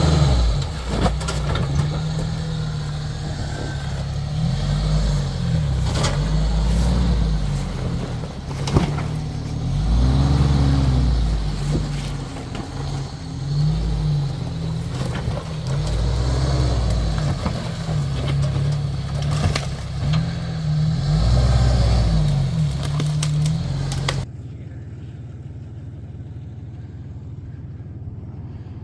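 Lifted Jeep's engine running at low revs with repeated throttle swells as it crawls over boulders in a rocky washout, with a few sharp knocks. Near the end the engine sound cuts off abruptly to a quieter steady outdoor background.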